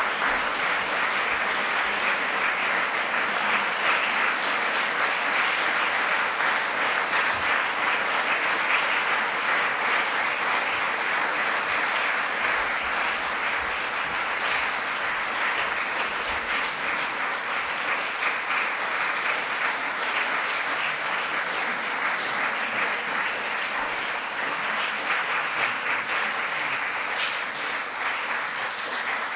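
Concert-hall audience applauding steadily, a dense patter of many hands clapping that eases off slightly near the end.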